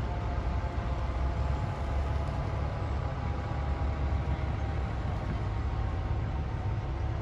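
Fire truck engines idling, a steady low rumble.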